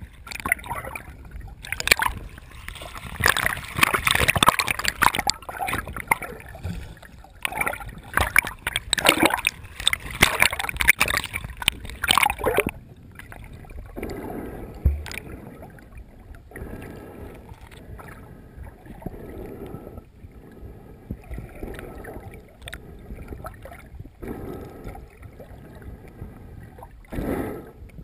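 Water splashing and sloshing around a snorkeler's camera at the lake surface. About halfway through the camera goes under and the sound turns suddenly quieter and muffled, with soft swishing from the swimmer's movements and a brief louder swish near the end.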